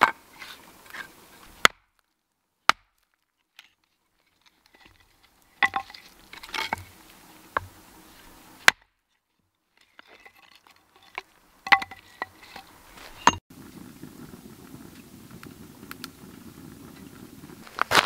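Hatchet splitting firewood into kindling on a wooden chopping stump: a series of sharp, spaced chopping knocks as the blade bites and the wood splits. In the last few seconds a steady low rushing noise runs under a few light clicks.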